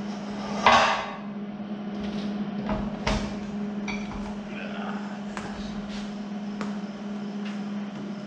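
Metal clanks and sharp knocks as a steel trailer bumper and its mounts are handled and fitted, with one loud harsh scrape under a second in, over a steady hum.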